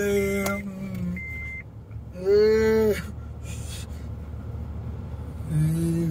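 Automatic car wash heard from inside the car: a steady low noise of the brushes and water spray, with a short high electronic beep repeating about once a second for the first second and a half. A person's voice gives a drawn-out 'ooh' that rises and falls about two seconds in, the loudest sound, with shorter voiced sounds at the start and near the end.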